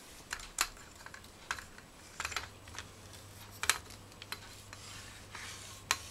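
Hama Star 62 tripod's plastic pan head and handle being handled and turned: a string of sharp plastic clicks and knocks over light rubbing, the loudest about half a second in, near four seconds and near six seconds. A faint low hum sets in about two seconds in.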